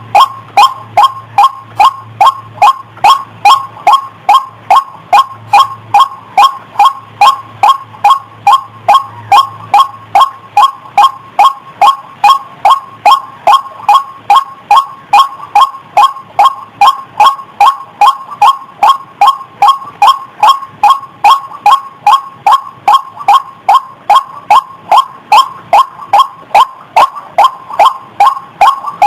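White-breasted waterhen (ruak-ruak), a female's call, repeating short harsh notes in a steady unbroken series, about three a second, each dipping slightly in pitch. It is a lure call used to draw in other waterhens.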